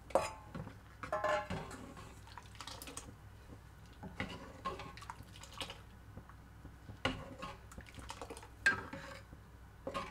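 Metal ladle clinking and scraping against a metal cooking pan as boiled lentil dal is poured in and stirred, with wet sloshing of the thick liquid. The clinks come irregularly, about once a second.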